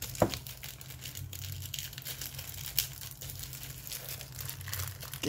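Clear plastic packaging crinkling and crackling as hands squeeze and pull at it to open it, with a sharp snap about a quarter second in and another near the three-second mark.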